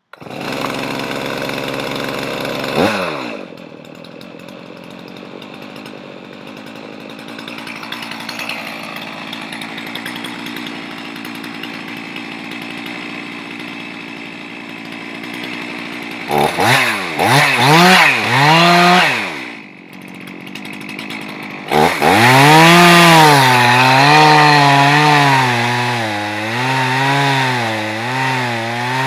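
Stihl MS 391 two-stroke chainsaw starting up. It runs fast for a few seconds, drops to idle with a falling pitch, and idles for several seconds. It is then revved in a few short bursts, and from about two-thirds of the way in it runs at full throttle under load with a wavering pitch, ripping a board lengthwise through an oak log in a Granberg chainsaw mill.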